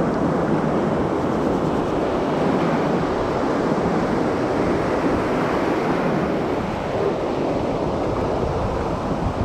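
Surf breaking and washing up a pebble shore, a loud, steady rush of water.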